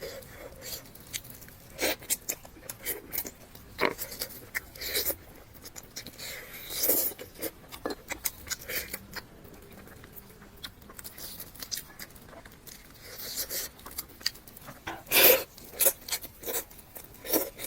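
Close-miked eating sounds: a person chewing and biting food, with irregular wet clicks and crunches, the loudest cluster about 15 seconds in.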